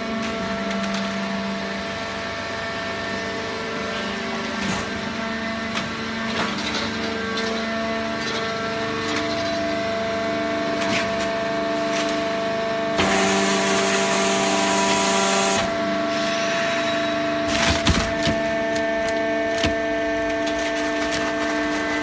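Fully automatic horizontal hydraulic waste-paper baler running, a steady machine hum of several held tones. A louder hiss comes in about halfway through and lasts a couple of seconds, and a few sharp knocks follow a little later.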